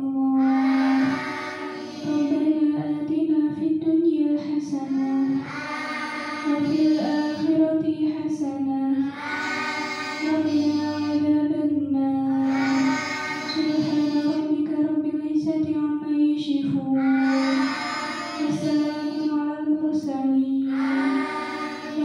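Girls singing an Islamic devotional chant in repeated phrases, a new phrase swelling up about every four seconds over steady held notes.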